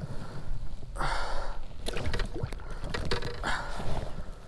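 Water splashing beside a kayak as a hooked gar thrashes at the surface, twice, with sharp knocks and clicks of handling against the hull in between.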